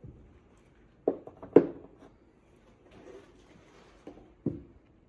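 A few sharp metal knocks and clicks from tools and parts being worked on in a VR6 engine teardown: two close together about a second in, two more near the end.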